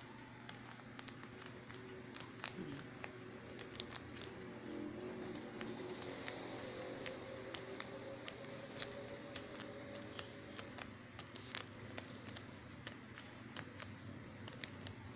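A pin pricking holes through a paper pattern laid on cloth, perforating the design along its traced lines for stamping. The sound is a run of small, sharp, irregular ticks, a few a second.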